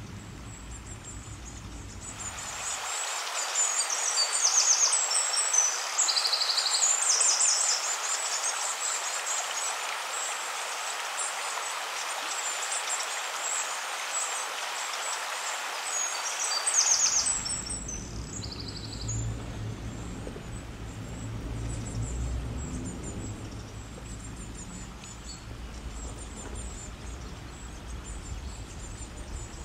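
Outdoor ambience with small birds chirping in quick repeated phrases over a steady hiss. About halfway through, the hiss drops away and a low rumble remains, with fainter chirps.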